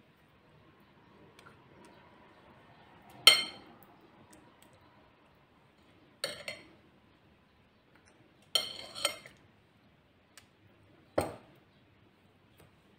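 A metal spoon clinking against a glass mixing bowl while scooping rice filling: about five sharp, ringing clinks a few seconds apart, two of them close together, the loudest about three seconds in.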